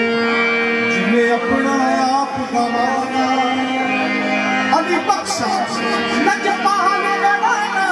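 Qawwali music: harmonium holding steady drone notes while a singer's voice winds above it in ornamented phrases.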